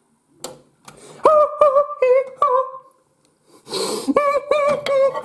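A man humming a tune in short held notes that slide into pitch, with a pause about halfway. A couple of clicks come just before it starts.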